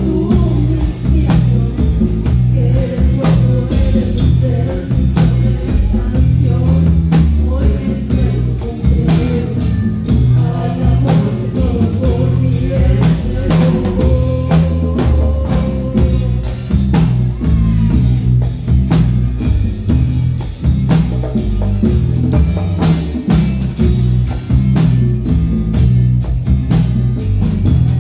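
Live band music played through a professional line-array PA: drum kit and congas keep a steady beat under electric guitar, with singing.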